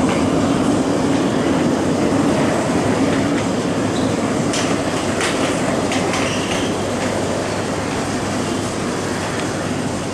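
MTR M-Train metro train running through an underground station without stopping, heard behind platform screen doors: a steady rumble of wheels on rail with a few sharp clicks, easing slightly toward the end.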